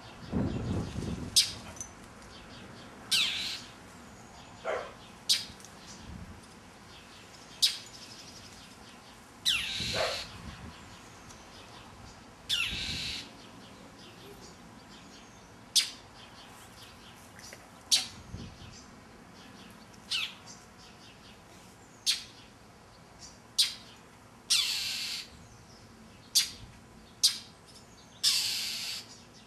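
Northern mockingbird scolding a cat: short, sharp alarm calls repeated irregularly every second or two, with a few longer harsh, rasping calls mixed in.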